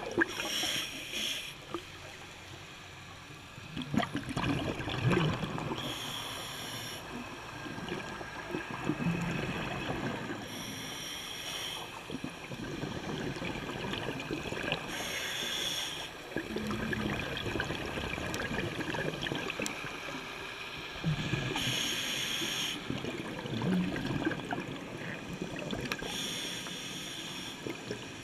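Scuba diver breathing through a regulator underwater: a hiss with each inhalation, coming about every four to five seconds, with the gurgling of exhaled bubbles between breaths.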